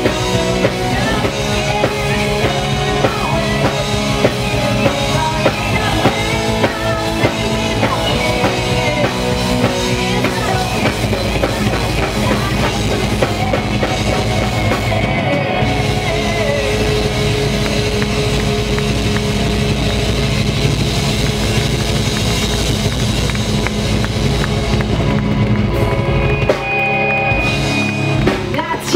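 Live folk metal band playing loud: drum kit, distorted electric guitars, bass and keyboards, with a woman singing. The playing breaks up in the last few seconds as the song closes.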